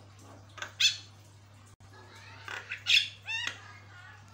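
Caged Javan myna (jalak kebo) calling: a short sharp call about a second in, then a run of harsh squawky calls ending in a quick rising warbled note around three seconds in.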